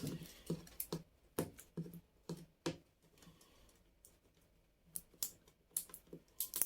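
Light, irregular clicks and taps, about a dozen, in two clusters with a gap of about two seconds between them.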